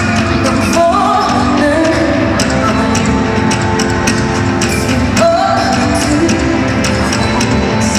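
Live pop concert music in a large arena, heard from the audience: a woman's lead vocal holding long notes with sliding runs over the band and drums.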